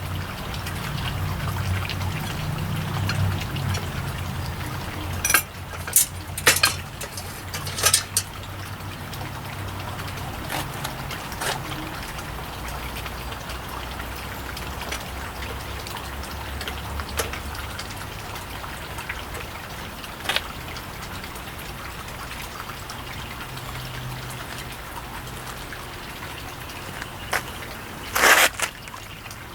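Small hand tools clicking and tapping on a circuit board while a component is being worked loose, over a steady hiss. There is a group of sharp clicks several seconds in and a louder cluster near the end.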